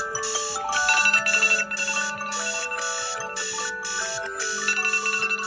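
Alarm tones from several smartphones (Samsung Galaxy, iPhone, Xiaomi) ringing at once and overlapping: a pulsing tone repeating about twice a second over several melodies.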